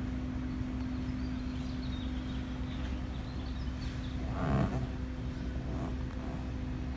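Freight locomotive horn held on one long steady note, sounding as the train approaches. A short louder sound swells over it about four and a half seconds in.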